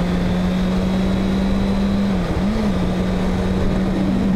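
Kawasaki ZX-6R's inline-four engine running steadily at cruising speed, heard from the rider's helmet camera with wind rushing past. Its pitch dips and briefly rises a little past halfway, then settles again.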